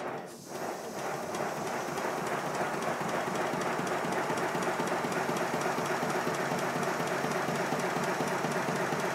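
Model steam locomotive running on compressed air with its wheels turning freely, giving a rapid, even clatter of exhaust beats and motion. After a brief dip at the start it settles into a steady pace. The repaired valve gear runs smoothly.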